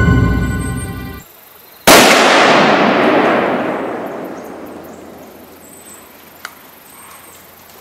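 Background music cuts off, and a moment later a single rifle shot cracks. Its report rolls away in a long echo through the woods, fading over about three seconds.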